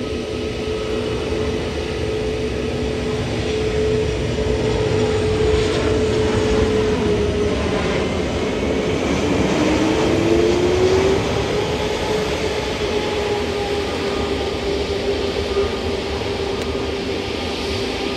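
Jet airliner's engines running with a steady whine over a broad rushing noise, swelling to a peak about ten seconds in and easing off, the whine dipping and gliding back up in pitch as the aircraft passes.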